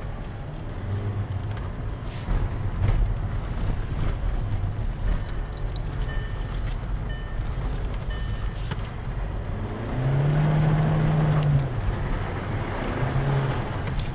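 Škoda Octavia RS heard from inside the cabin, driving on snow: steady engine and tyre rumble, with the engine revving up and back down about ten seconds in and briefly again near the end.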